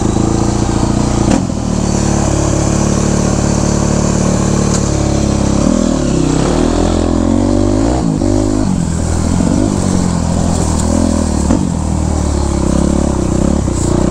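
Yamaha YZ426F's four-stroke single-cylinder engine running steadily, then revving up and down repeatedly from about six seconds in as the bike is ridden.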